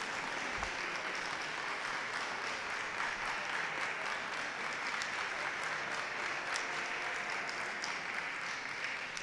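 Audience applauding steadily, greeting a dog as it is called out in the judging ring.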